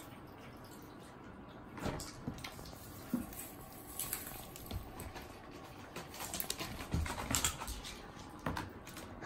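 Scattered light taps, thumps and rustles as a cat scrambles on a wooden floor and paws at a small Christmas tree hung with ornaments. The taps come thicker about two-thirds of the way through.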